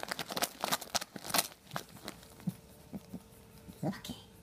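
Gift wrapping paper crinkling and tearing as a dog noses and pulls at it, in short irregular crackles, most of them in the first second and a half and only a few after.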